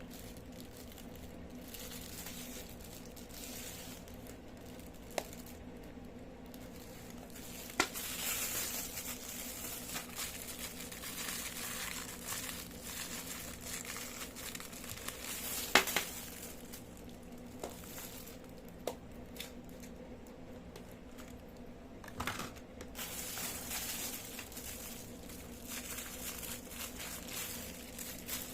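Packaging from online-shopping parcels being handled, crinkling and tearing as it is opened, with several sharp clicks or taps, the loudest about halfway through.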